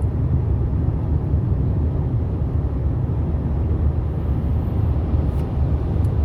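Steady low rumble of a car cruising at highway speed, heard from inside the cabin: tyre and road noise with the engine underneath, holding level.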